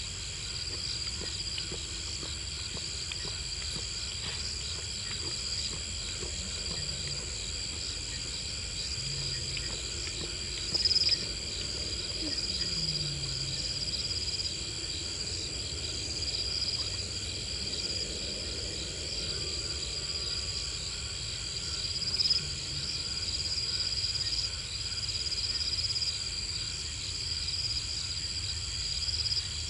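Steady night chorus of insects, several trilling at different high pitches at once, with a few brief louder swells from one of them.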